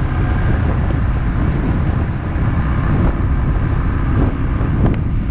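Royal Enfield Thunderbird 350X's single-cylinder engine running steadily through its exhaust.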